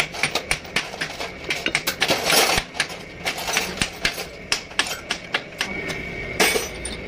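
Hammer tapping on the main bearing caps around the crankshaft of a diesel truck engine block: sharp metallic taps, irregular, several a second.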